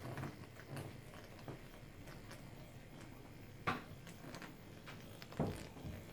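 Faint low hum of a corded nano-needling pen running against the skin, with scattered soft taps and clicks and two louder short knocks, one about midway and one near the end.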